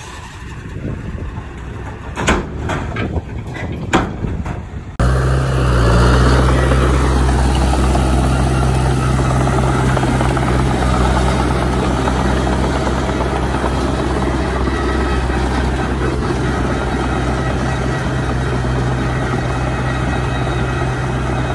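A few sharp knocks of rocks tumbling from a tipping dump truck bed, then, from an abrupt change about five seconds in, the steady low drone of a crawler bulldozer's diesel engine working as it pushes dirt.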